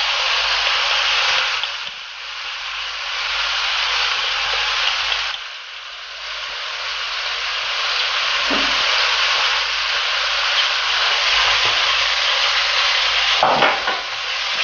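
Chunks of beef sizzling in hot olive oil with sautéed onion in a stainless steel pot as they brown. Near the end a wooden spoon stirs the meat.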